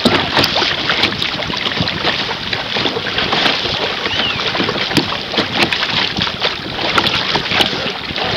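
Choppy water splashing and slapping against the bow of a moving canoe in quick, irregular hits, over a steady hiss of water and wind buffeting the microphone.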